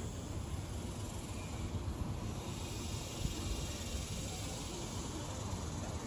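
Wind gusting through banana plants, rustling their large leaves, with an uneven low rumble and a steady hiss.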